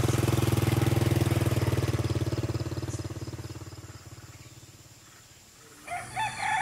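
A small motorcycle engine running steadily, then growing fainter and fading out over about five seconds. Near the end a rooster begins to crow.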